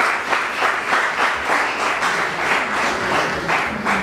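Audience of uniformed school students applauding: many hands clapping together in a steady, dense patter.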